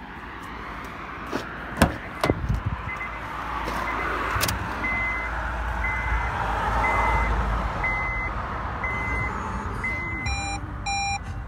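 Two sharp clunks of the Honda Stepwagon's door about two seconds in, then the car's electronic warning chime beeping about once a second inside the cabin. Near the end come two different, fuller chimes.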